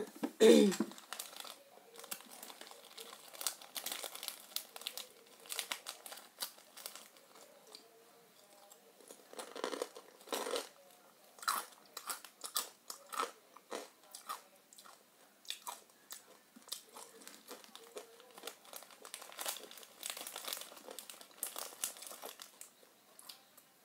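Irregular quiet crunching and clicking close to the microphone, with one louder short sound about half a second in.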